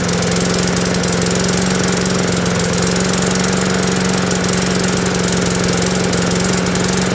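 Lawn mower's small engine running at a steady speed.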